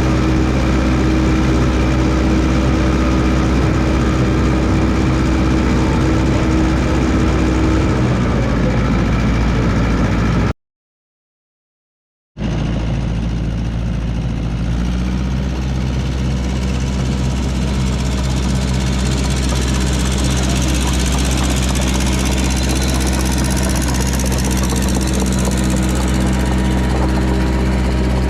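Massey Ferguson 300 crawler dozer's engine running steadily, with a cut to dead silence for about two seconds partway through, after which the engine runs on with an added hiss.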